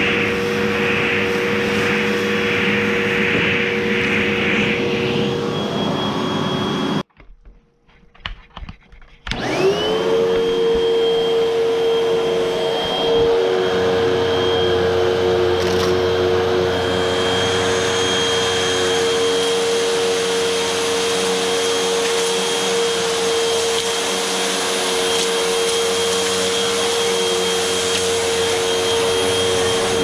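Hoover WindTunnel upright vacuum cleaner running with a steady motor whine. It stops about seven seconds in, a few knocks follow, and a couple of seconds later it starts again with a rising whine and runs steadily while picking up fluff from the carpet.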